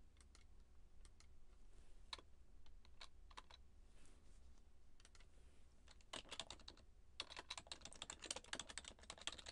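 Faint computer keyboard typing: a few scattered key clicks, then a quick run of keystrokes from about six seconds in.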